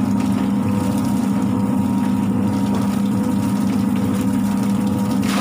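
Drum-type chicken plucker running, its motor giving a steady low hum as the spinning bottom plate tumbles chickens against the rubber plucking fingers to strip their feathers.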